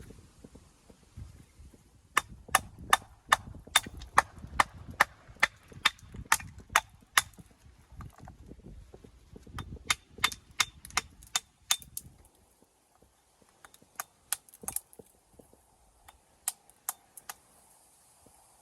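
Hammer striking stone in runs of sharp blows about two a second, three runs with pauses between, the last one sparser.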